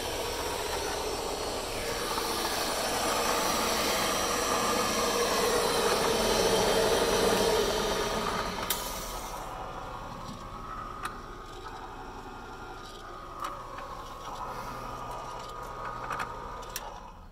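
Patterson-Kelley V-blender's electric drive running with a loud mechanical rattle as the stainless steel V-shell turns. About halfway a sharp click comes as the drive rocker switch is flipped, and the running sound falls away as the blender winds down. A few lighter switch clicks follow near the end.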